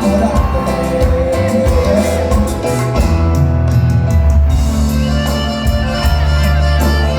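Live cuarteto band playing with no words sung: a steady bass line that changes note every second or so under a regular percussion beat.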